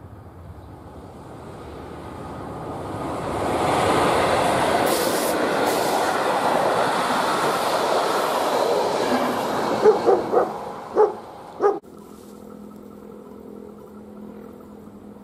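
Czech Railways class 150 electric locomotive with passenger coaches passing close by. The rumble and wheel-on-rail noise build up over the first few seconds and stay loud, with a quick run of sharp clacks from wheels over rail joints near the end. The sound then cuts off suddenly, leaving a faint steady hum.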